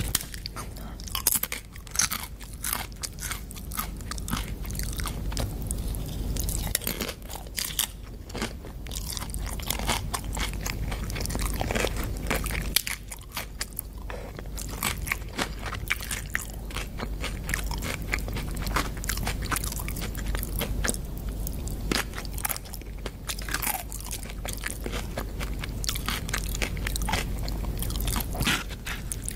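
A person biting and chewing crunchy food close to the microphone: a dense, irregular run of crisp crunches and crackles.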